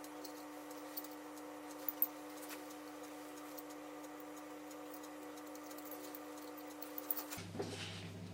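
A faint steady hum with a few light clicks and taps, two sharper ones about two seconds in; about seven seconds in the hum drops to a lower pitch.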